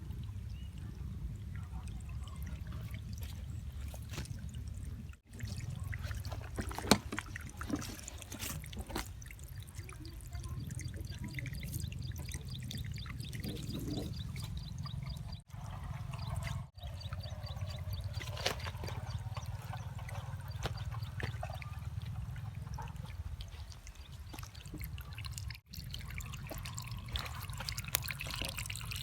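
Water trickling and splashing over a small homemade mini waterfall, with a steady low hum underneath and a few brief cuts.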